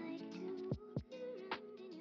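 Background music: a plucked-string melody with notes that slide in pitch, over sharp percussive hits.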